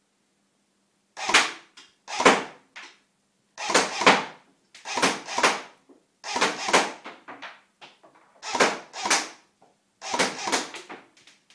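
Cybergun SIG 556 airsoft rifle being fired, sharp cracks in quick groups of two or three, a new group about every second, starting about a second in.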